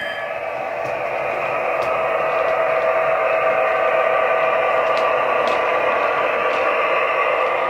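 Class 66 diesel locomotive sound played by a Hornby TTS DCC sound decoder through the OO gauge model's small speaker: the EMD two-stroke engine running, thin and without bass, growing slowly louder as the model approaches. A few faint ticks come through it.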